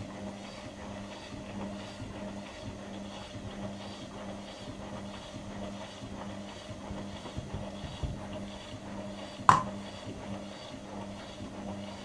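Indesit front-loading washing machine mid-wash, the drum turning with its motor humming steadily while sudsy water and laundry slosh in an even swish about twice a second. About three-quarters of the way through comes a single sharp click, the loudest sound.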